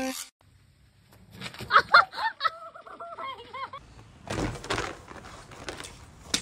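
Chickens clucking in a run of short calls, loudest about two seconds in, followed by a rustling thump.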